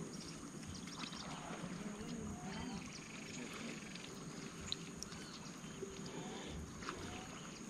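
Faint waterside ambience with scattered short animal calls over a steady high hiss, and a single sharp tick a little past the middle.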